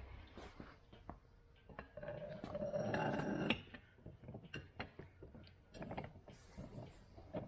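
Metal parts clicking and knocking, with a louder stretch of scraping, mechanical rattling about two seconds in that stops suddenly about a second and a half later.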